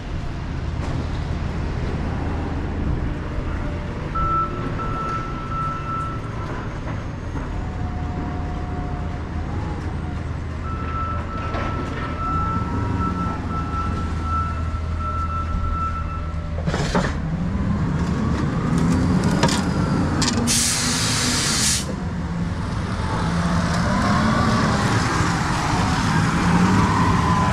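Heavy engine running steadily, then a large forklift's engine revving up and down as it works close by, with a loud burst of air hiss about 20 seconds in.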